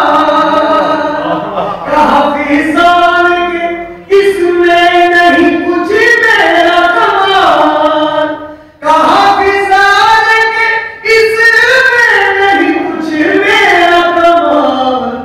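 A man's solo voice singing a poem unaccompanied into a microphone, with long held notes that slide between pitches. It breaks off briefly for breath about four and nine seconds in.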